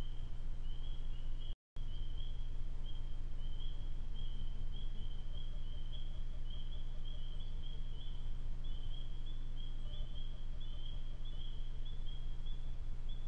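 Low steady hiss and rumble of a trail camera's microphone, over a continuous high-pitched pulsing chorus of calling night animals. The sound drops out completely for a moment about a second and a half in.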